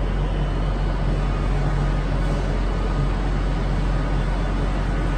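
Steady rumble of trains standing at the platforms of a large glass-roofed railway station: a low, even engine hum under a constant wash of station noise.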